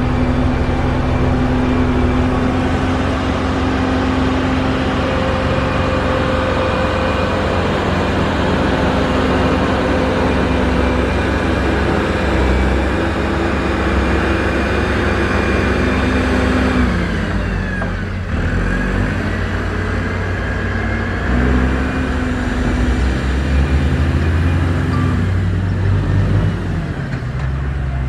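Diesel engines of heavy road-construction machinery running steadily. About two-thirds of the way through, the engine sound dips briefly and shifts in pitch, then settles again.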